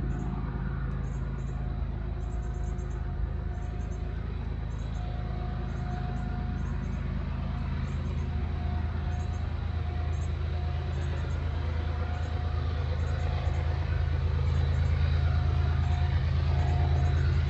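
Diesel locomotives of a CSX freight train working up a grade, a deep engine drone that grows steadily louder as the train approaches.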